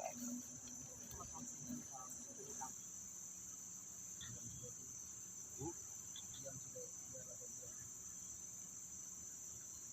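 Steady, high-pitched insect chorus droning without a break, with a few faint scattered sounds underneath.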